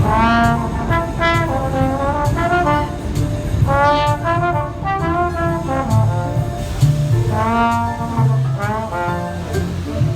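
A subway busker playing a jazz-style tune on a brass instrument, in phrases of pitched notes with short breaths between them, some notes bending up in pitch.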